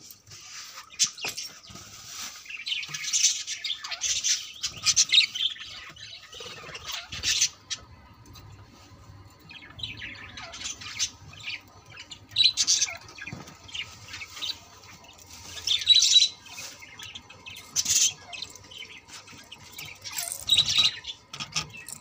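Budgerigars chattering, chirping and squawking in irregular bursts of high calls.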